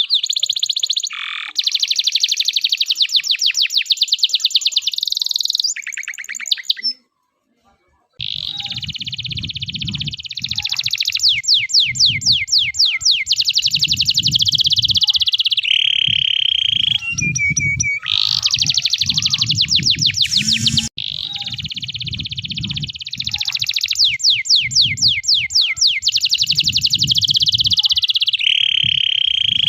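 Domestic canary of the loper type singing a long unbroken song of fast trills, rolls and held notes, with a short pause about seven seconds in. From about eight seconds a low pulsing rumble runs under the song.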